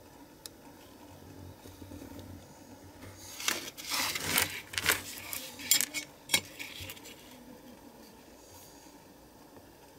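Utility knife cutting printed cardboard along a metal ruler: a run of quick scraping strokes with sharp clicks, from about three and a half seconds in to about seven seconds, the loudest clicks near the end of the run.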